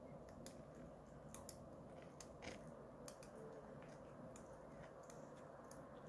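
Woodpecker pecking at tree bark: faint, sharp taps at an irregular pace, roughly two a second.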